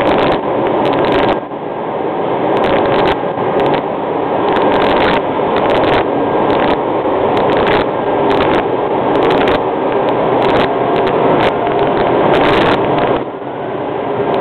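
Automatic car wash's water spray and air blowers rushing over the car, a loud, steady rush with a regular pulsing, heard from inside the car.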